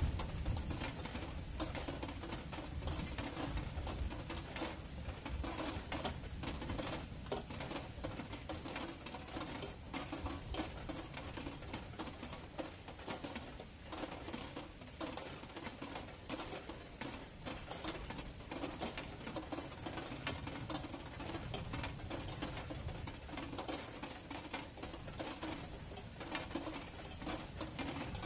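Steady rain in a night thunderstorm, with many close drops pattering and a low rumble underneath.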